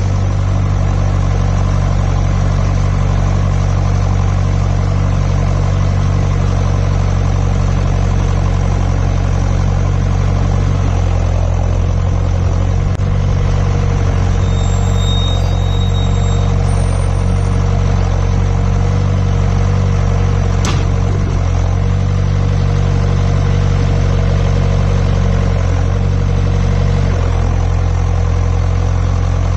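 John Deere 6400 tractor's four-cylinder turbo-diesel engine running steadily, its note shifting slightly a few times. There is a single sharp click about two-thirds of the way through.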